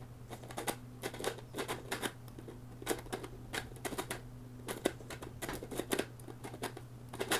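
3D-printed plastic maze puzzle being worked by hand: the lid's pegs click and knock along the grooves of the inner maze cylinder as it is twisted and slid, in irregular clicks several times a second, over a steady low hum.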